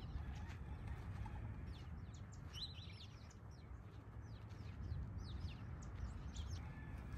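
Small birds chirping: a quick scatter of short, high, falling chirps through the middle stretch, over a steady low rumble.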